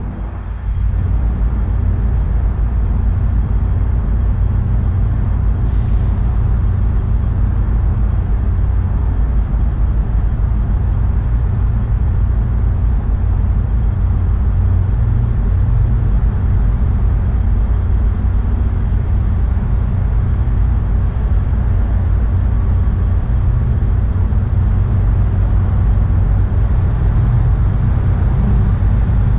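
Wind buffeting the microphone, making a loud, steady low rumble.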